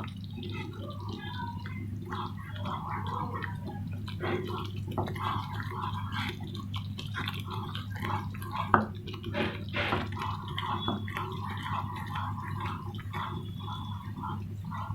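Onion-tomato masala paste frying in mustard oil in a pan, bubbling and spluttering with many small irregular pops as it cooks down until the oil separates. One sharp knock sounds about nine seconds in.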